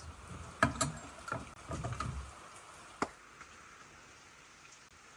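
Dry kindling sticks and paper being laid into a fireplace grate: wooden knocks and rustling for about two seconds, then one sharp knock about three seconds in.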